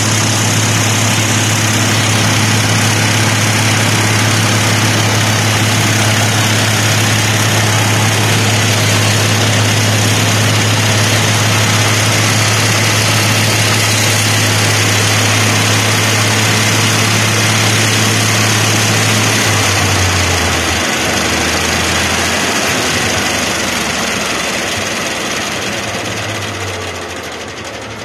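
Farmall 806 tractor's six-cylinder engine running at a steady speed, heard up close from the operator's platform. About two-thirds of the way through, its note drops and wavers and it grows quieter as the engine slows.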